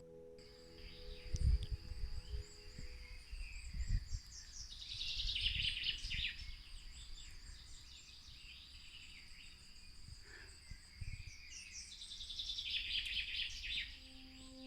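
Small songbirds chirping, with two denser trilling runs of song, one about a third of the way in and one near the end, over a few low thumps. Soft sustained music tones fade out in the first few seconds.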